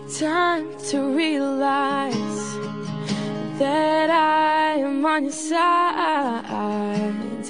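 Pop song: a singer's melody over acoustic guitar backing.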